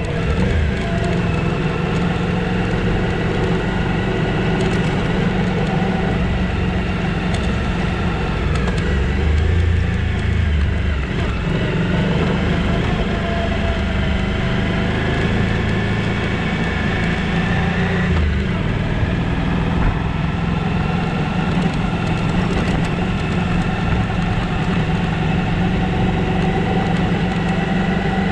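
Adventure motorcycle's V-twin engine running steadily as the bike rides along a dirt road, with a steady rush of road and wind noise over it, heard from the bike's own camera.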